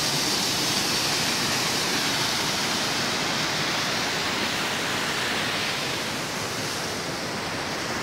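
Waterfall: a steady, even rush of falling water that softens slightly near the end.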